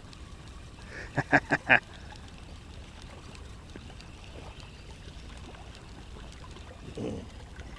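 Four quick, sharp slaps or knocks about a second in, over a steady wash of river water around a small boat.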